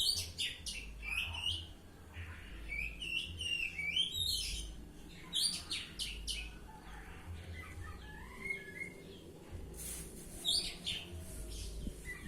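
Oriental magpie-robin (kacer) singing a varied song of sharp chirps, whistles gliding up and down, and quick trills, with short pauses between phrases.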